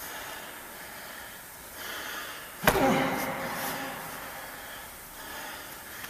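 Two men trading arm contact in chi sau sparring, with breathing and scuffling. One sharp smack about 2.7 s in is the loudest moment, followed by a short falling vocal sound.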